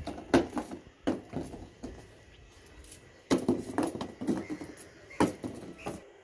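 Bananas being cut from the bunch with a knife and dropped into a cardboard box: a run of irregular dull knocks and thuds, the loudest about a third of a second in, again around three seconds in and once more near five seconds.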